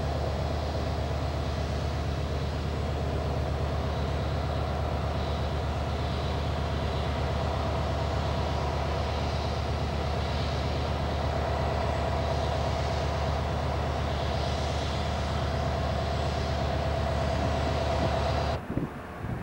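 Steady low drone of an idling engine, cutting off suddenly near the end.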